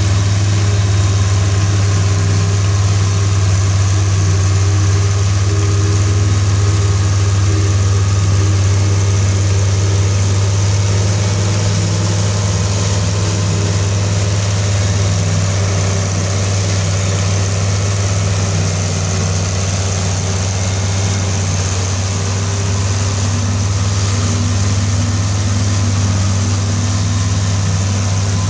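International Farmall 806 tractor engine running steadily under load, pulling a PTO-driven forage harvester that is chopping standing corn. The harvester runs behind it, and the combined sound holds even and loud with a strong low engine note throughout.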